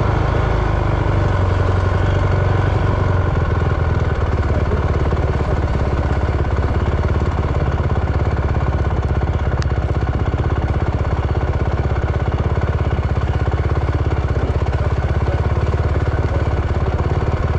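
An engine running steadily, with a rapid, even firing pulse and a strong low hum.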